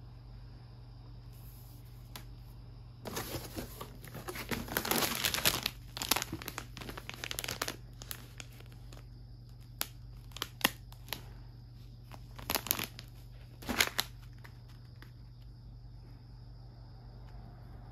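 Crinkling and rustling of something being handled, dense from about three to eight seconds in, then a few separate crackles, over a steady low hum.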